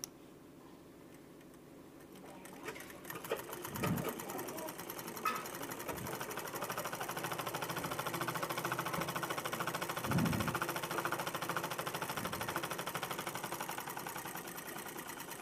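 Straight-stitch sewing machine sewing a test seam, starting about two seconds in and building to a fast, even run of needle strokes, with a couple of low thumps. It is the trial stitch after the bobbin case was tightened to cure a loose bottom thread that had spoiled the upper stitching.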